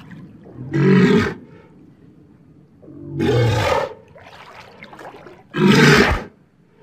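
Walrus calling: three loud calls, each under a second long, about two and a half seconds apart.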